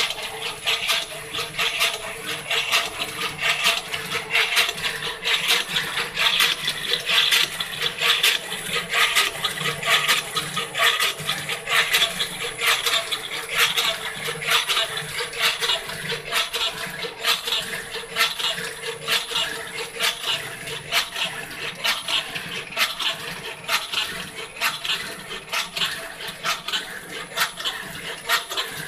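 CNC machine running a cutting job: a steady whine with dense, irregular crackling and scraping clicks throughout.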